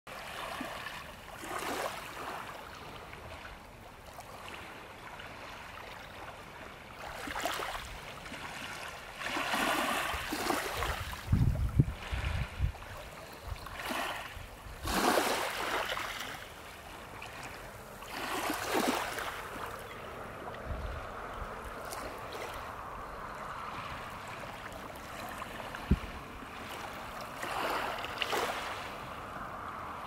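Small Lake Superior waves lapping and washing onto the shore, swelling every few seconds. A brief burst of low rumbles comes about a third of the way in, and a single sharp click comes near the end.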